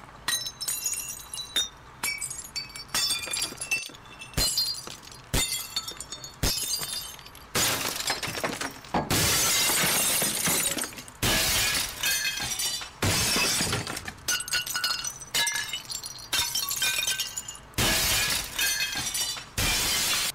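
Window glass shattering again and again: a dozen or more separate crashes, each starting sharply with tinkling shards, most over in under a second and a few lasting one to two seconds.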